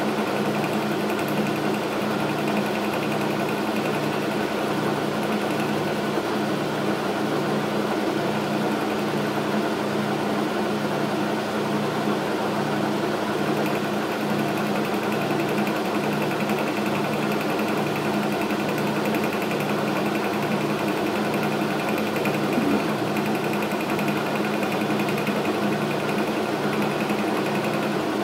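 Logan metal lathe running steadily under power, with a regular low pulse in its drive, while a carbide tool takes a light interrupted cut on a round part.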